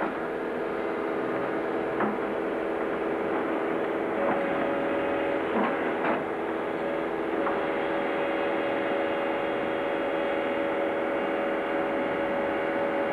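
Tracked excavator's diesel engine running steadily, with a few faint knocks and clanks from the rubble it is working.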